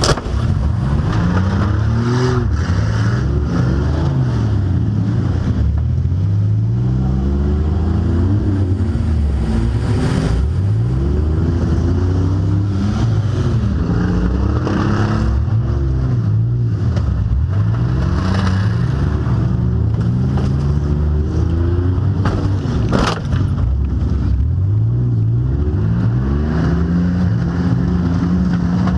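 Demolition derby car engines revving up and down, several at once, heard from inside one of the cars. A few sharp bangs cut through, two close together about three-quarters of the way through.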